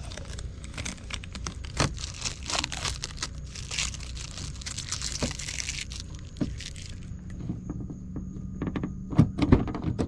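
Clear plastic protective film crinkling and tearing as it is peeled off a new chrome exterior door handle, for about seven seconds. Then a few sharp clacks near the end as the handle is gripped and pulled.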